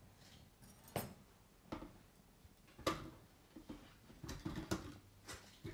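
Frozen banana pieces tipped from a glass bowl into a food processor's plastic bowl: faint, separate knocks and clinks about a second apart, then several in quick succession near the end.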